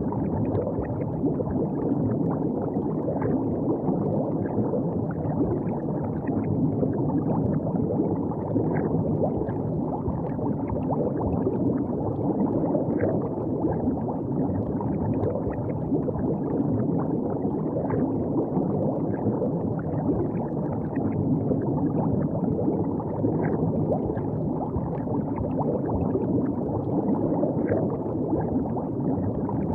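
River water gurgling and lapping at the bank: a steady low rush with many small splashes throughout.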